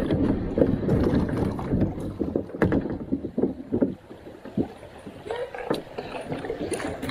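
Kayak paddle strokes splashing in the water, alternating side to side, with a few sharp knocks. It is loudest for the first few seconds and quieter after about four seconds in.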